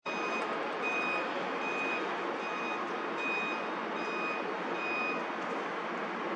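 A vehicle's reversing alarm beeping, seven evenly spaced high-pitched beeps about three-quarters of a second apart that stop about five seconds in, over a steady background hiss of noise.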